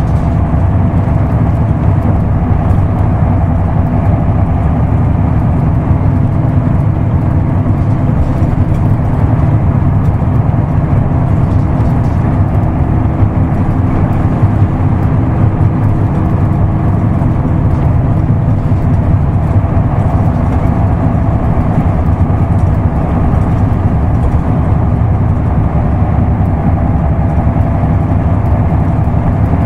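Isuzu Erga Mio manual-transmission route bus's diesel engine running steadily under way, heard inside the cabin with road rumble.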